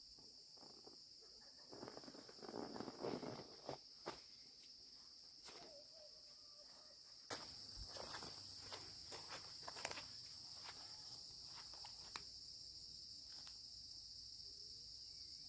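Steady high-pitched insect chorus, growing louder about halfway through, with scattered rustling and clicks of nearby handling or footsteps, mostly in the first half.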